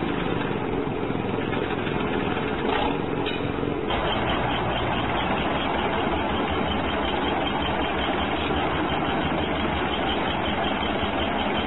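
Small electric gear-head motor driving a model aerial ropeway's gear train and cable drums, running with a steady mechanical whir. The sound changes character about four seconds in.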